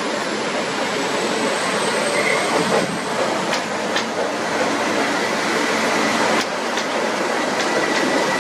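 Double-headed Class 37 diesel locomotives, with English Electric V12 engines, running past at close range, a steady loud mix of engine and rail noise. Several sharp clicks come through from about three and a half seconds in.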